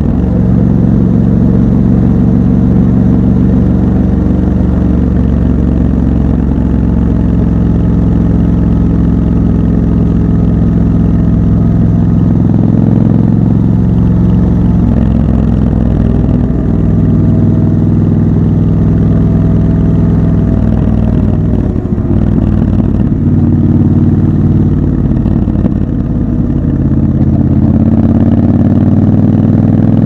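Triumph Scrambler 1200 XC's 1200 cc parallel-twin engine running on the move, heard raw from the rider's seat. Its note holds steady, then steps up and down in pitch several times as the throttle changes, and rises near the end as the bike accelerates.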